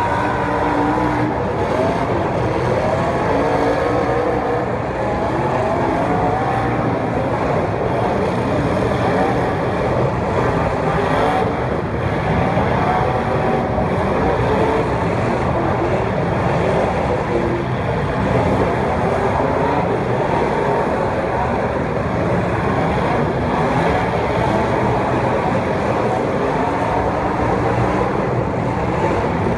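Several racing engines running together on track, their pitch rising and falling over and over as the cars accelerate and back off.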